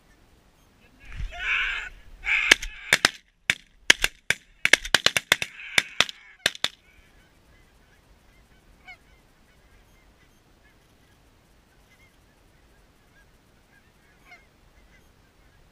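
Goose calls blown close by: a long honk, then a rapid run of short, sharp clucks and honks lasting about five seconds. After that, faint scattered calls of geese in the flocks overhead.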